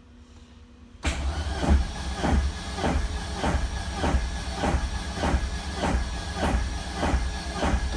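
Starter motor cranking the 1983 VW Rabbit GTI's inline-four engine with the ignition killed, for a compression test on cylinder 3. It is a steady mechanical whirr with a regular beat just under twice a second. It starts about a second in and stops near the end.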